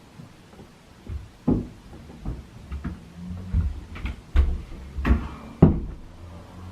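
A run of irregular knocks and thumps, about ten over four seconds, like a cupboard door and objects being bumped and handled; the loudest comes near the end.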